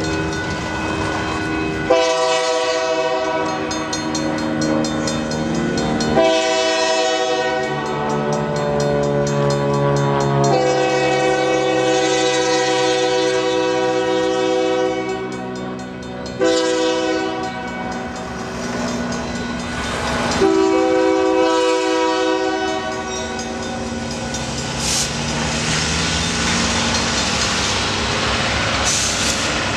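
Freight locomotive's multi-chime air horn sounding the grade-crossing signal: a long blast, a second, longer one, a short one and a final long one, over the running diesel train. It signals the train's approach to a public road crossing.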